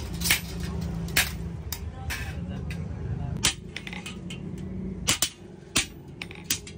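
Hammer blows on steel in a forge: sharp metallic clinks at an uneven pace, roughly one a second, over a steady low machine hum that falls away about five seconds in.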